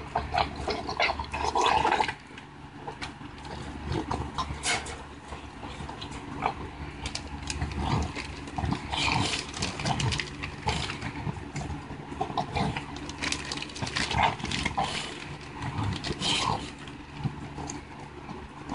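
American bully dog eating raw pork taken from a hand: irregular wet smacking, licking and mouthing clicks, with little real chewing. A steady low hum runs underneath.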